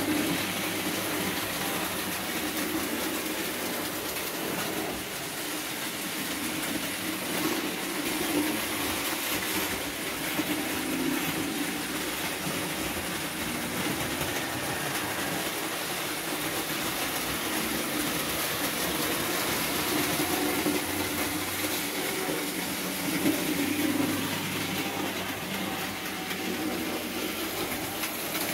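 Vintage Märklin model trains running on stamped metal track: a continuous mechanical running and rattling sound that swells and eases a little.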